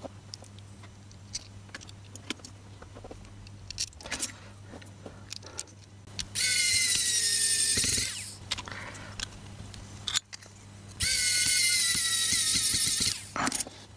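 Cordless electric precision screwdriver (Wowstick) running twice, about halfway through and again near the end, each run a motor whine that sags slightly in pitch as it drives the case screws into an SG90 micro servo. Faint handling clicks between the runs.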